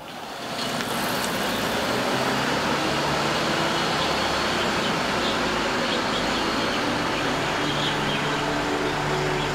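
A van driving along a road: steady engine and tyre noise that fades in over the first second, then holds even.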